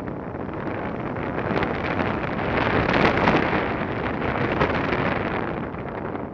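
Wind from the airspeed of a tandem paraglider in flight buffeting the camera microphone, a rushing noise that swells to its loudest about three seconds in and then eases.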